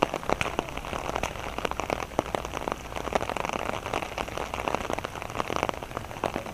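Rain falling steadily, with many irregular sharp ticks of drops striking close by.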